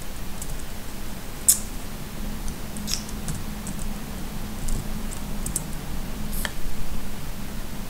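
Computer keyboard keystrokes and mouse clicks: a scattered series of short, light clicks, one sharper click about a second and a half in and a louder one late on, over a steady low hum.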